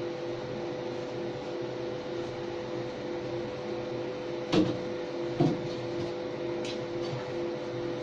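MOPA fiber laser marking machine running as it marks a stainless steel plate: a steady hum with two held tones, the lower one coming and going in short stretches. Two short knocks about four and a half and five and a half seconds in stand out above it.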